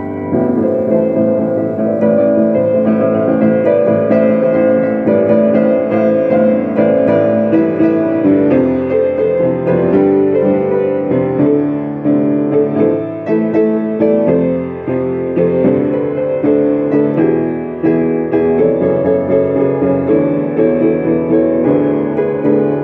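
Piano music, with held, overlapping notes and chords changing in steps.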